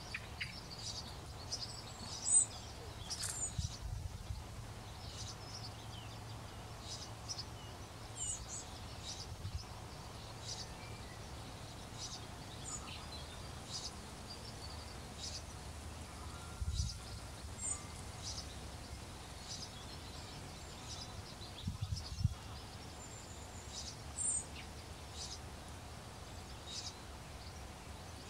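Outdoor ambience with birds chirping now and then in the distance, over a steady low hum, and a few soft low thumps.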